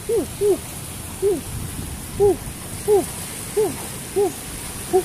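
A man hooting through pursed lips: about eight short hoots, spaced under a second apart, each rising and then falling in pitch.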